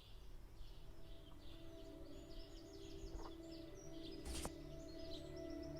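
Faint bird chirps, many short repeated calls, over a steady low drone and hum; a single sharp click about four and a half seconds in.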